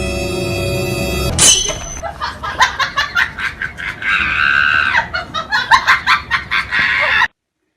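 Dramatic music cut off about a second and a half in by a sudden high shriek, then a person screaming and laughing in rapid bursts, cut off abruptly near the end.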